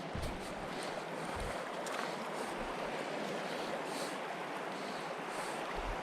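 Steady rushing of creek water over a riffle, with a few faint low bumps now and then.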